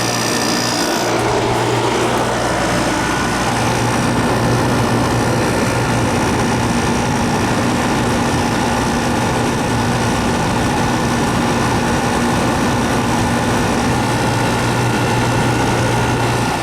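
1993 Kenmore 106.8760694 6,000 BTU window air conditioner, made by Whirlpool, running steadily: the even rush of its fan's airflow over a steady hum from its rotary compressor. It sounds perfectly healthy.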